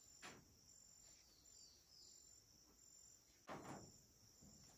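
Near silence: faint, steady high chirring of insects, with a pulsing trill repeating about twice a second. Two soft rustles of a hair ribbon being handled and tied come about a third of a second in and about three and a half seconds in.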